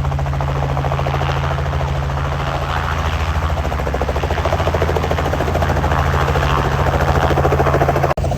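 Helicopter running, a fast, even rotor chop over a steady low engine drone; the sound breaks off for an instant near the end.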